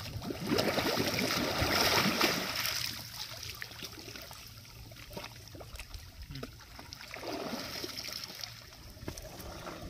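Water splashing and sloshing as elephants wallow and shift in a shallow pond, loudest for the first two seconds or so, then settling to quieter lapping with small splashes.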